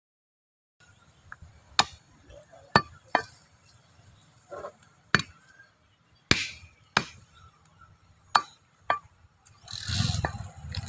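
Butcher's knife chopping beef on a wooden log chopping block: about eight sharp single strokes at uneven intervals, roughly one a second.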